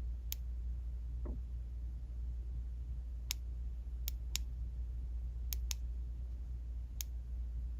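Power button of a small COB LED keychain flashlight clicked seven times at uneven intervals, with short sharp clicks, as it is cycled through its light modes. A steady low hum runs underneath.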